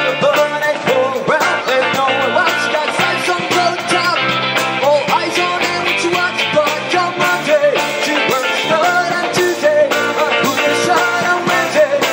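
Live rock band playing a funk-flavoured indie-rock song on drum kit, electric guitars and bass guitar.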